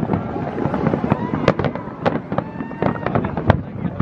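Aerial fireworks display: a rapid, irregular string of sharp bangs and crackles over a continuous rumble, with a few faint whistles gliding in between; the loudest bang comes about three and a half seconds in.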